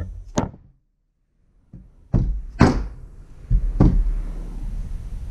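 A mallet striking a leather stitching punch: two quick knocks, a short silent gap, then a few more knocks spread over the next couple of seconds.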